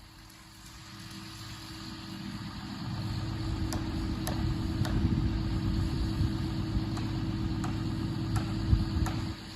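An engine running steadily at idle. It grows louder over the first few seconds and drops off just before the end, with a few faint ticks over it.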